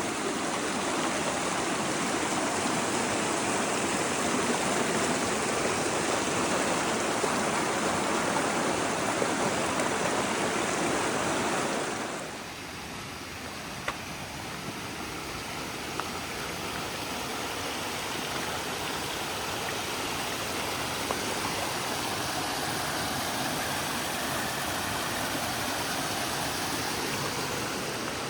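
Steady rushing noise, outdoors on a trail. It drops abruptly about twelve seconds in to a quieter, similar rush with a few faint clicks.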